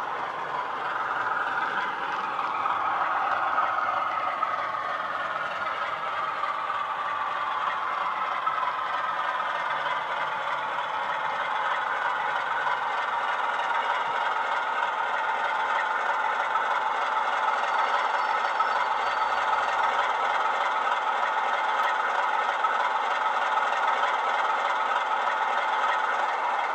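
Bachmann Class 47 model locomotive's Coastal DCC sound decoder playing a Class 47 diesel engine sound through two 20x20x7 mm megabass speakers as the loco runs under power. The engine note changes in the first few seconds, then runs steadily, with a light rattle of the model on the track.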